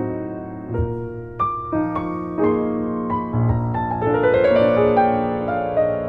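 Classical piano music: notes struck one after another over held chords.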